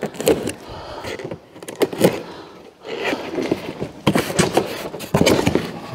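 Cardboard shipping box being opened by hand: the lid and flaps are pulled and worked loose, giving irregular bursts of cardboard rustling and scraping with small clicks.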